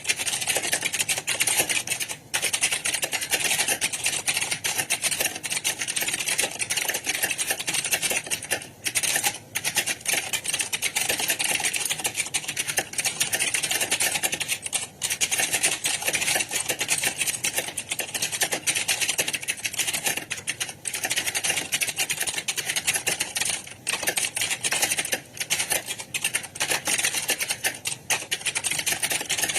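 Many computer keyboards being typed on at once: dense, overlapping keystroke clatter that never stops, with only a few brief lulls.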